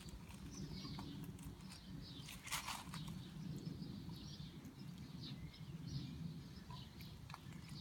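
Quiet outdoor ambience: a low steady rumble with faint scattered bird chirps, and one short rustling noise about two and a half seconds in.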